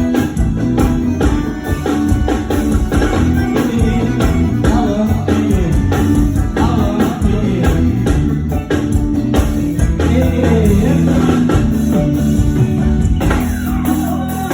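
Live band music at a soundcheck: electronic keyboard with drums and a strong bass line, and a singing voice over it.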